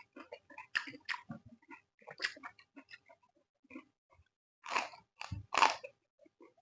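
Close-up chewing of crisp raw vegetables: wet smacking and crackling, with two louder crunches as bites are taken a little after the middle.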